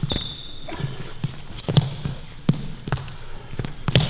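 Basketball dribbling on a court: several bounces spread through a few seconds, with short high-pitched sneaker squeaks on the floor.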